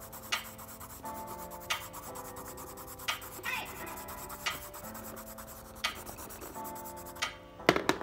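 Colour pencil scribbling back and forth on sketchbook paper, a dry rubbing scratch, under background music of held notes with a click about every second and a half.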